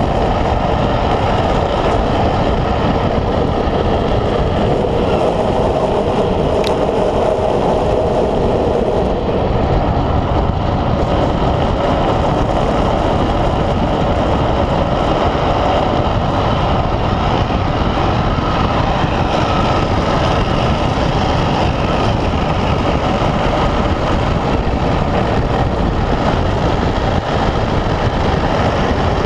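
Unpowered speed trike coasting fast downhill on asphalt: a steady, loud roar of its wheels rolling on the road, mixed with rushing wind.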